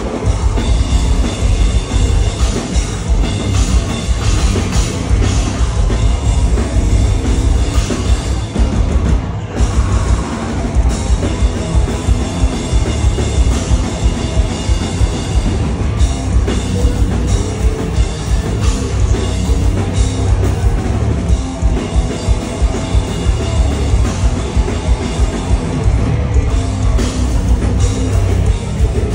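Metal band playing live through a loud PA, with fast, dense drumming driving the song and a short break about nine seconds in.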